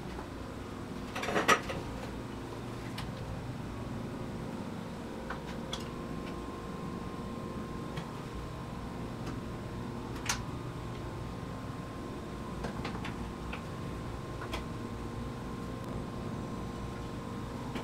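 Light scrapes and clicks of a small metal plate working wet plaster around a clay model, over a steady workshop hum; the loudest is a short scraping clatter about a second and a half in, with a sharp click near the middle.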